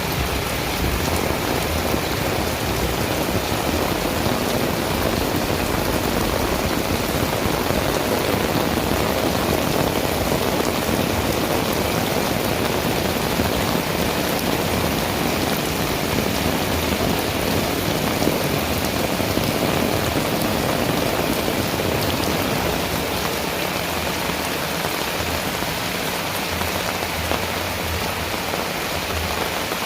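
Heavy rain pouring steadily, a dense even hiss of drops on surfaces.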